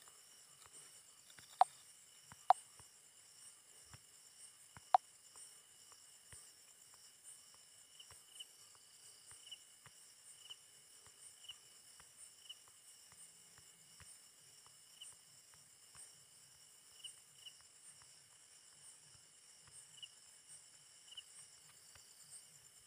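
Faint, steady high-pitched insect chirring with small regular pulses. Three sharp clicks stand out in the first five seconds.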